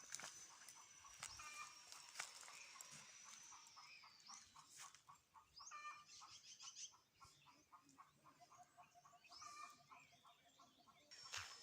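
Quiet farmyard sounds: chickens clucking and other birds calling in short rapid series, over a steady high-pitched whine.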